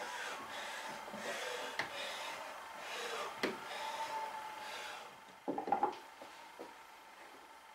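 A file scraping in repeated strokes across the wooden body of a coffin smoother, trimming the seat of its steel toe for a better fit. The strokes come about one a second, then stop, and a few sharp knocks follow as the plane is handled.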